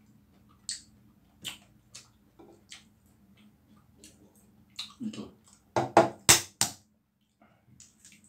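Balut eggshell being handled and knocked: a few light clicks, then four sharp knocks in quick succession about six seconds in, as the egg is tapped to crack it open.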